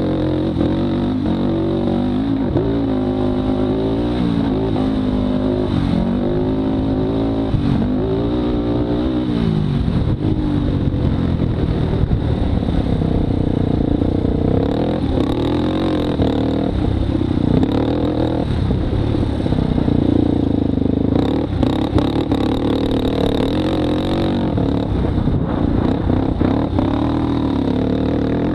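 Polaris Predator 500 sport ATV's single-cylinder four-stroke engine under way, revving up and down again and again as the throttle is worked through the turns, then pulling more steadily for the rest of the stretch.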